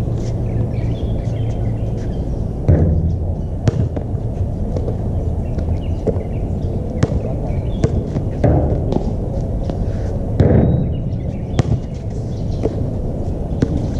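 A basketball bouncing on an outdoor court, making irregular thuds, over a steady low rumble.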